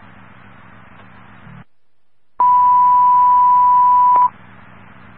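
Fire dispatch radio channel: faint scanner hiss, a short dead gap, then one loud steady beep lasting about two seconds that cuts off sharply. This is the dispatcher's alert tone sent ahead of a dispatch announcement.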